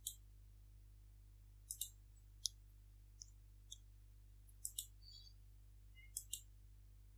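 Computer mouse button clicking faintly: several sharp, scattered clicks, some in quick pairs.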